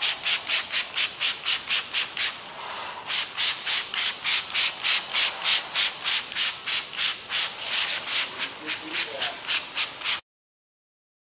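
Paintbrush stroked quickly back and forth over a car hood, spreading a thick coat of chemical paint stripper: an even run of hissing brush strokes, about three to four a second, with a short pause about two seconds in. It cuts off suddenly near the end.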